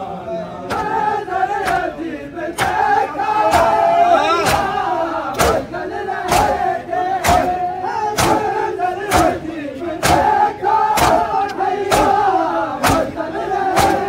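A crowd of Shia mourners doing matam: men chant a lament in unison while striking their chests with open palms together, a sharp slap about once a second.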